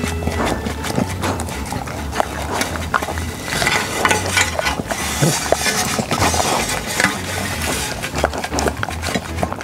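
Two dogs eating a thick soup from stainless steel trays right beside the microphone: wet licking and lapping with many small clinks of tongues and teeth against the metal.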